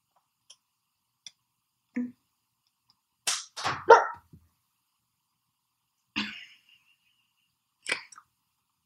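A dog barking in short, separate barks: one about two seconds in, a loud quick run of two or three a little after three seconds, then two more single barks later.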